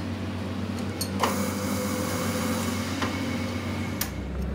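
Large metal lathe with a four-jaw chuck: a metal clank with a short ringing tone about a second in, over a steady machine hum. About four seconds in there is a click and the lathe starts turning, adding a deeper hum.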